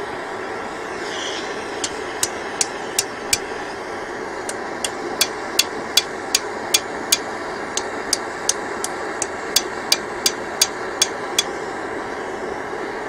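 Hammer blows on metal, about three a second, in several runs with short pauses between them, over a steady background hiss: the hammering that is typical when knocking a rust-seized brake rotor loose from the hub.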